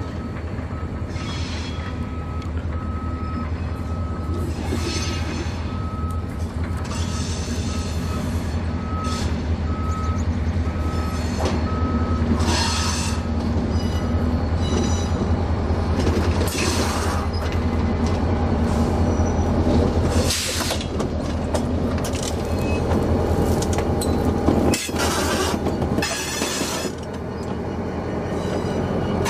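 A heavy diesel engine running steadily, with a reversing alarm beeping about once a second for the first half. Short bursts of hiss come and go.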